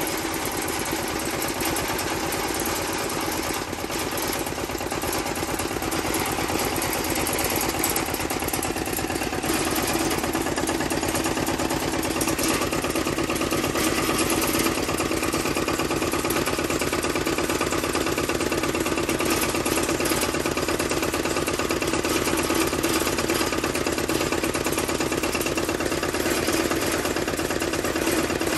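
Kubota riding cultivator's KNDR90 diesel engine running steadily, its belt pulley turning. It gets a little louder about ten seconds in.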